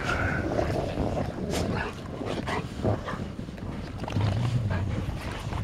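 Golden retrievers playing and wrestling in snow, with wind buffeting the microphone. A brief pitched whine comes near the start, with scuffling through the rest.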